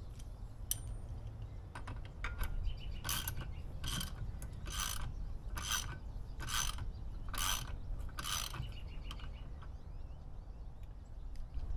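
Socket ratchet wrench clicking through about seven strokes, roughly one a second, as the propeller nut on a Mercury 40 hp four-stroke outboard is tightened, with a few lighter clicks before them.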